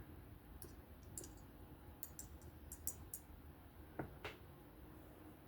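Faint, scattered light clicks and taps of small titanium folding-knife parts being handled, with a cluster in the middle and two sharper clicks about four seconds in.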